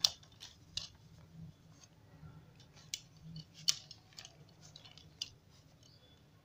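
Handling noise from a plastic-and-aluminium tripod selfie stick being turned over in the hand: several sharp clicks and light taps, a second or so apart, the loudest right at the start.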